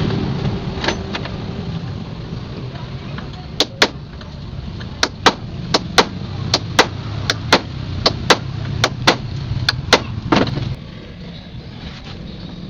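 Sharp metal strikes in a regular series, about two a second, for several seconds, like a hammer knocking on the truck's body or parts during dismantling. Under them is a steady low hum that drops off shortly before the end.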